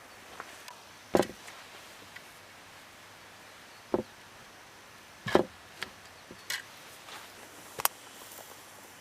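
A handful of separate knocks and clicks, about five, of objects being handled and set down, the loudest a little over a second in and about five seconds in.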